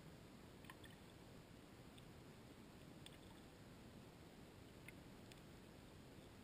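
Near silence from a GoPro recording underwater in its waterproof housing, with a few faint, short ticks scattered through it.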